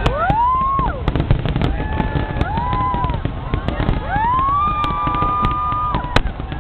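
Fireworks display: shells bursting and crackling over a steady low rumble, with a sharp bang near the start and another near the end. Several high whistles rise and hold for about a second each, the longest a little past the middle.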